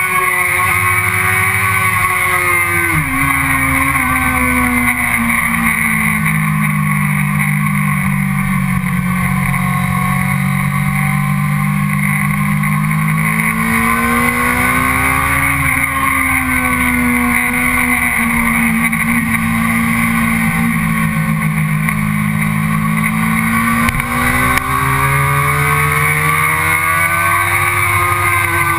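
Sport motorcycle engine running hard at speed, its pitch falling and climbing again and again with the throttle and gear changes. There is a sharp drop in pitch about three seconds in, a climb around the middle, and another climb near the end after a brief dip in loudness.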